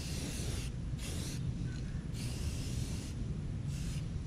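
Aerosol spray can of rust-converting primer hissing in four short bursts, the longest about a second, as it coats the lower edge of a car door. A steady low rumble runs underneath.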